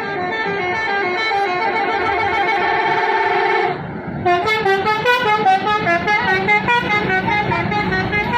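Bus telolet horn, a Basuri multi-trumpet musical horn, playing a fast tune of short stepping notes. It breaks off about four seconds in, then the horn tune starts again over the rumble of the bus engine.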